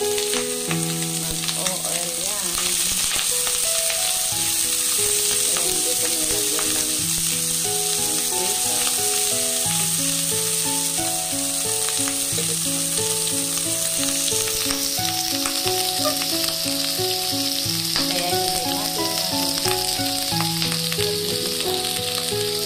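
Diced pork belly fat sizzling steadily in a hot, dry nonstick wok, rendering out its own fat. A melodic background tune plays alongside the sizzle.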